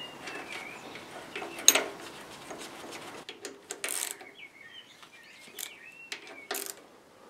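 Metal clicks and taps of the alternator's adjusting bracket and long bolt being fitted by hand, with one sharp click a little under two seconds in. Birds chirp in the background.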